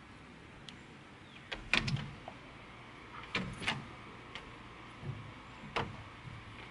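Scattered sharp clicks and ticks, about eight in all, from hands working fishing line and a reel while restringing a fishing rod. A quick cluster of clicks comes a little under two seconds in.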